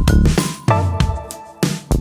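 Background music with a punchy drum beat and melodic instruments.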